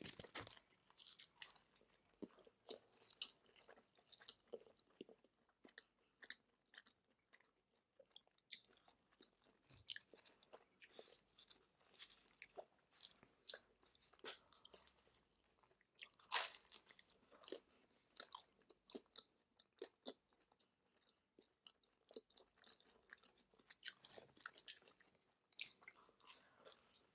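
Two people biting and chewing pepperoni pizza close to the microphone: irregular crunches of crisp crust between quieter chewing, the loudest crunch about sixteen seconds in.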